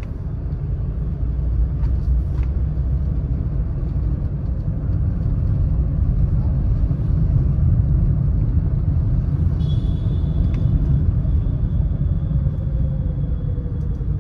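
Steady low rumble of a small car's engine and tyres on the road, heard from inside the moving car's cabin.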